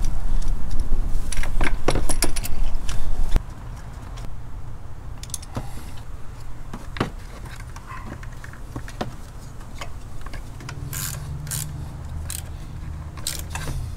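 Metal hand tools clinking and clicking: a spark plug socket, extension and ratchet being handled as a spark plug is fitted and threaded in. A loud low rumble runs under the clicks for the first three seconds or so.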